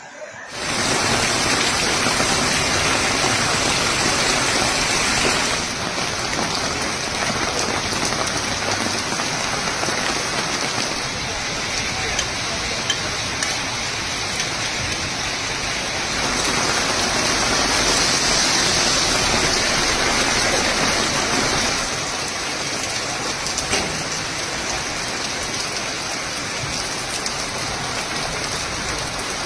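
Heavy rain pouring down: a dense, steady hiss of downpour on surfaces, its level stepping down and back up a few times.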